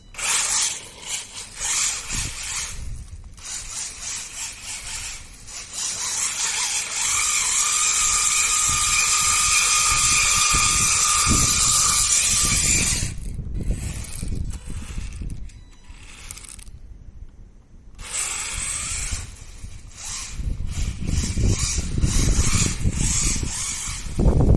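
WLToys 144001 RC car driving in bursts, its electric motor and metal-geared drivetrain giving a high-pitched whine. The longest run is about 6 to 13 seconds in, with a short pause around 17 seconds. The owner puts the whine down to the new metal centre driveshaft meshing with the motor gear, metal on metal, and judges it fine.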